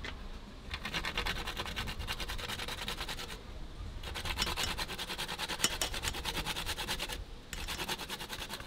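Whole nutmeg grated by hand on a flat perforated metal grater: a fast, scratchy rasp of quick strokes. It comes in three runs with brief pauses between.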